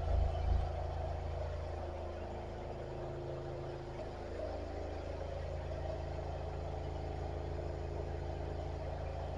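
High-pressure drain jetter's engine and pump running at a steady hum while the jet hose works through a grease blockage in the sewer line, a little uneven for the first half second and then even.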